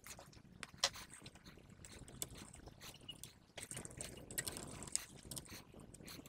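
Faint handling sounds of a plastic 3D-printer filament strand being pushed by hand into a Bondtech dual-drive extruder: scattered light clicks and scraping, with a sharper click about a second in.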